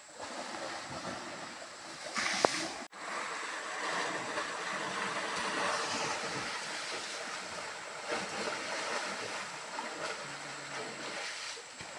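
Muddy stream water rushing and splashing where two elephants are wrestling in it, a steady noisy wash. A sharp knock about two and a half seconds in, then the sound cuts out for a moment before the wash resumes.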